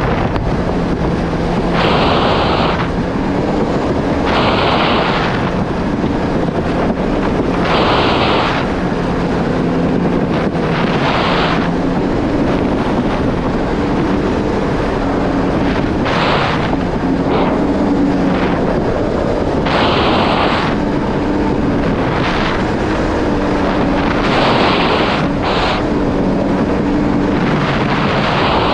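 Yamaha GP1800R SVHO personal watercraft's supercharged engine running steadily under way, its pitch stepping up about halfway through. Wind buffets the microphone throughout, and about ten hissing bursts of roughly a second each come and go over it.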